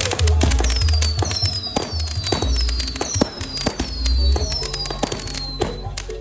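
Fireworks going off in quick, irregular bangs and crackles, with a run of falling whistling tones. Loud music with a heavy pulsing bass plays underneath.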